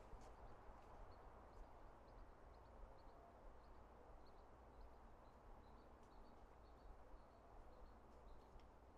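Near silence: faint outdoor ambience with a small bird's short high chirps repeating about two or three times a second.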